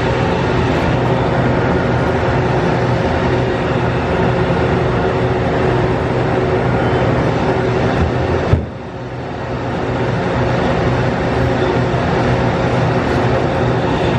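Index MS-22C six-spindle automatic screw machine running: a steady, loud mechanical whir and hum with several steady tones. One sharp clack comes about eight and a half seconds in, after which the noise briefly drops and then comes back up.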